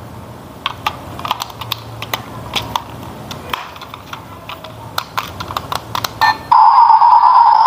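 Light plastic clicks and snaps as batteries and the battery cover of a toy RC truck's plastic remote are handled. About six and a half seconds in, a loud steady electronic beep tone starts suddenly, from the toy's sound unit coming on with power.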